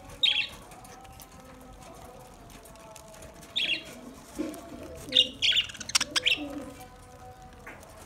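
Flock of budgerigars chirping and squawking in short bursts: one about half a second in, another around three and a half seconds, and a busy cluster between about five and six and a half seconds.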